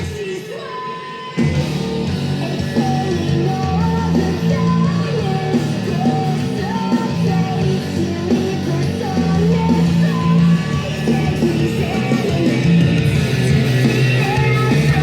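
Nightcore rock track: high-pitched singing over electric guitars. The low end drops out at the start and the full band comes back in about a second and a half in.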